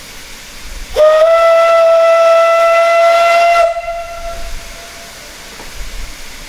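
A narrow-gauge steam locomotive's whistle blows one long, steady blast of about two and a half seconds, starting sharply about a second in and cutting off abruptly, the signal before the train departs. A soft hiss of steam from the standing locomotives runs before and after it.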